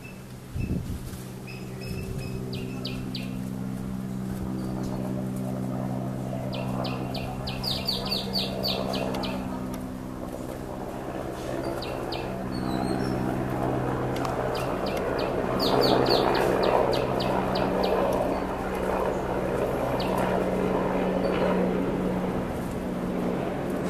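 A bird gives several rapid series of short, high chirps, the loudest about eight and sixteen seconds in, over a steady low hum and a background rumble that grows louder in the second half.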